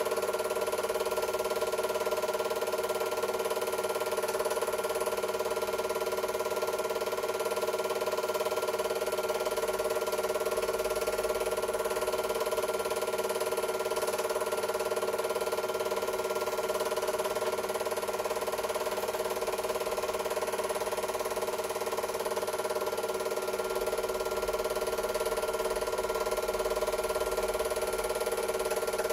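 Super 8 film projector running: a steady mechanical whir and hum with a few fixed tones over a hiss, unchanging throughout.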